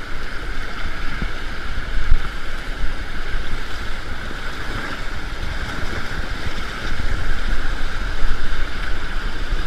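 Whitewater river rushing steadily around an inflatable raft, with wind rumbling on the microphone.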